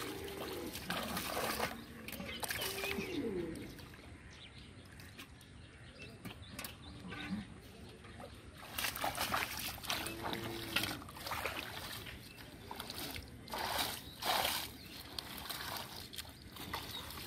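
Shallow muddy water splashing and trickling as hands and bare feet work through it, with several sharper splashes from about nine seconds in.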